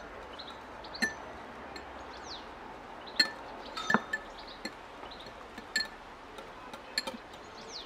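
Metal fork whisking a lime juice and oil dressing in a small ceramic bowl, clinking sharply and irregularly against the bowl's side a dozen or so times.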